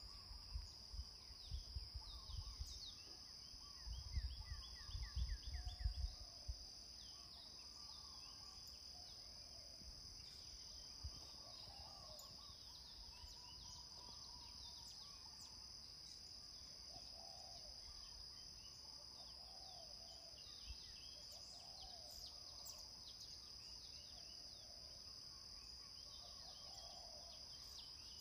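Insects droning in a steady high-pitched tone, with scattered bird chirps and calls over it. Wind rumbles on the microphone in the first six seconds.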